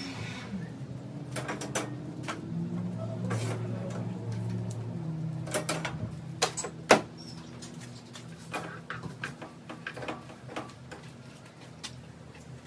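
Kitchen clatter: scattered clicks and knocks of cookware and utensils being handled, among them a frying pan on a gas stove, the loudest knock about seven seconds in. A steady low hum runs underneath, strongest in the first five seconds.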